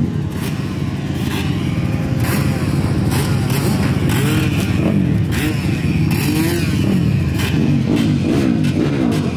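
Several small dirt bike engines racing around a motocross track, revving up and down in overlapping rising and falling pitches as the riders shift and accelerate.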